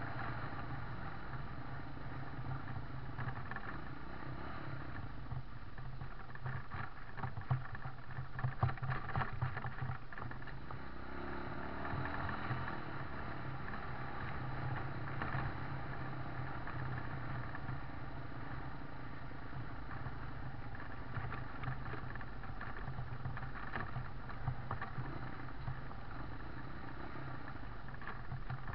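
A motor vehicle driving over a rough gravel track: a steady engine hum under road noise, with scattered rattles and knocks from the bumpy surface, thickest about a quarter of the way in.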